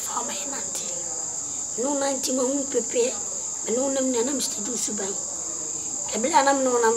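A child crying in three drawn-out, pitched cries over the steady high chirring of crickets.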